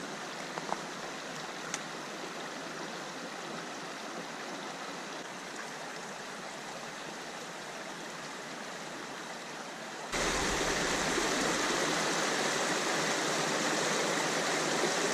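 A small mountain stream rushing over rocks, a steady wash of water. About ten seconds in it cuts abruptly to a louder, fuller rush.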